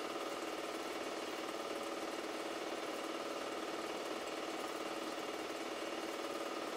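Super 8 film projector running: a steady motor whir with a fast, even clatter from the film advance.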